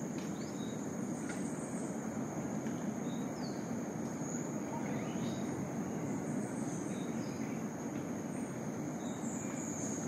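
Tropical rainforest ambience: a steady, high-pitched insect drone over a continuous low rush, with scattered short bird chirps and whistles.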